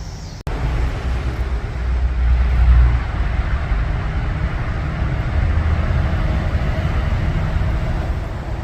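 Motor vehicle running with a steady low rumble, swelling briefly about two seconds in.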